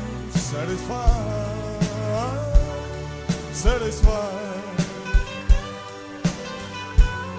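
Live band playing a slow ballad: a bending lead melody over bass notes and a steady drum beat.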